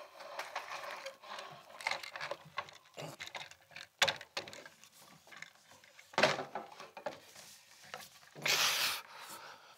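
Wooden coat rack being pulled up out of a leather suitcase: wood rubbing and knocking against the case, with sharp knocks about four and six seconds in and a longer scrape near the end.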